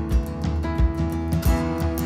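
Background music: a strummed guitar over a steady beat.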